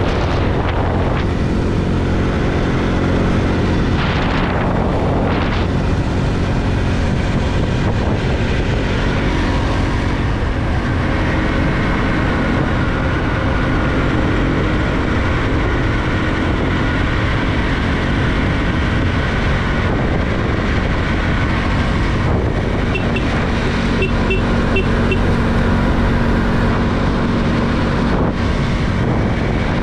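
Bajaj Pulsar 200NS motorcycle's single-cylinder engine running steadily at cruising speed, with wind noise from riding; a brief whoosh about four seconds in.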